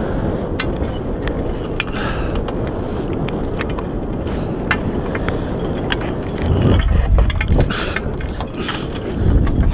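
Wind buffeting the microphone in a steady rumble, with stronger gusts around seven seconds in and near the end. Over it come scattered sharp metal clicks and knocks from the antenna mast being worked into its mounting pipe and clamps.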